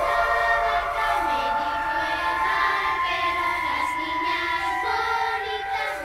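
Closing music with singing voices: held chords under a moving melody.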